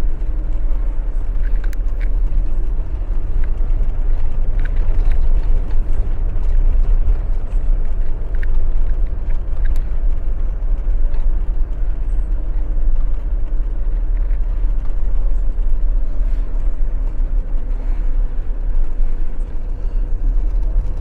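Motorhome engine running as the van drives slowly, with a steady low rumble and a faint engine note that drifts up and down. Scattered light clicks and ticks can be heard over it.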